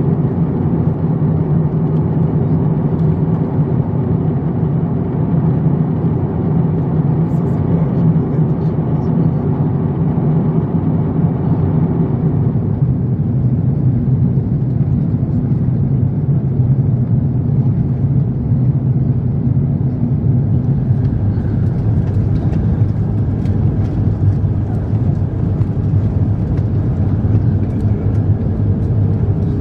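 Steady cabin noise of an Airbus A350-900 in descent, heard from a window seat over the wing: a low drone from its Rolls-Royce Trent XWB engines and a rush of airflow. About twelve seconds in, the sound shifts to a lower, less hissy drone.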